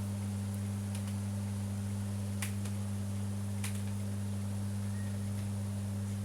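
A steady low electrical hum, with faint sizzling and a few sharp pops from beef chunks searing in melted butter in a pot.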